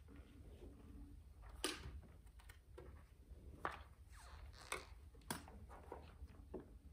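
Sheets of paper being handled and shuffled at music stands: a few short, crisp rustles over a low steady room hum.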